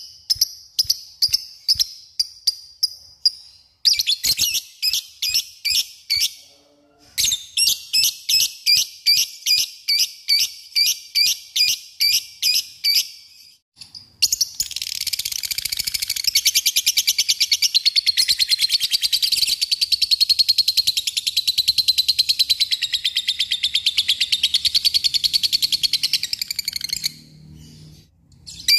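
Lovebird calling. First comes a series of sharp, evenly repeated high chirps in two bouts with a short break. About halfway through, the bird launches into one long, unbroken, fast chattering trill (the 'ngekek panjang'), which lasts about 13 seconds and cuts off suddenly.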